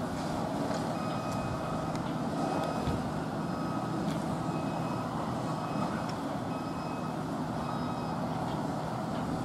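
Vehicle reversing alarm beeping at an even pace, about one beep a second, over a steady low hum.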